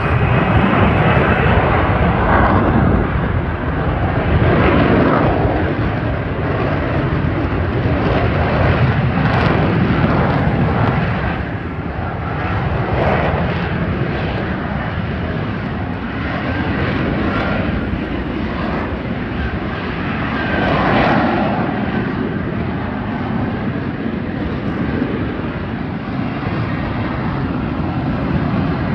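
Military aircraft engine noise at an air show: a loud, steady roar that swells and eases several times as the aircraft flies past.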